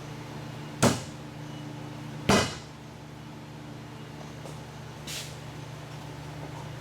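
Two sharp knocks about a second and a half apart, then a fainter one, over a steady low hum.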